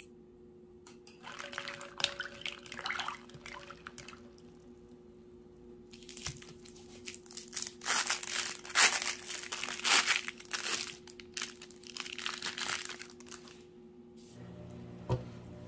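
Thin plastic film crinkling and rustling as imitation crab sticks are peeled out of their wrappers by hand, in irregular bursts that are loudest about halfway through.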